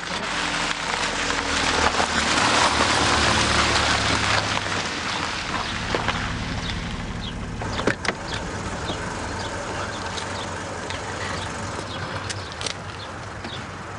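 A Mercedes taxi pulls up on a gravel driveway: its engine hums low and its tyres crunch over the gravel, loudest in the first few seconds. Then a single knock comes about eight seconds in, with faint bird chirps.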